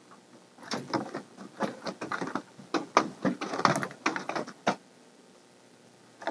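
Hooded gyrkin hybrid falcon flapping its wings on its perch inside a truck's camper shell: a run of irregular feather rustles and knocks against the walls and perch that stops about five seconds in.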